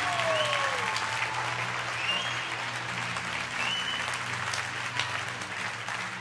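Large audience applauding, with a few high whoops and whistles over the clapping, slowly dying down.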